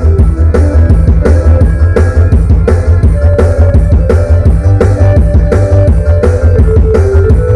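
Rock music with a drum kit and a steady beat, played loud through an MCRD-T5 power amplifier kit driving a speaker as a sound test, with heavy bass; the tester judges its character as suited to low and sub-bass.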